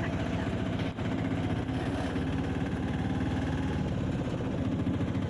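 Auto-rickshaw's small engine running steadily with a fast, even throb, heard from on board.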